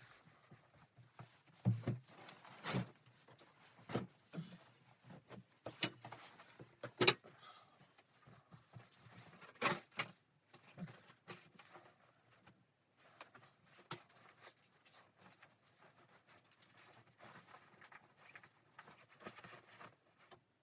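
Irregular knocks and clatters of camping gear being handled while a hot tent is set up, with soft rustling between the louder knocks.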